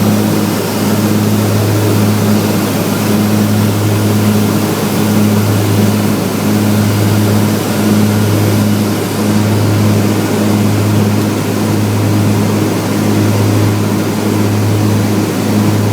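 Twin piston engines and propellers of a Cessna 402B running steadily, a low drone with a slow, regular rise and fall.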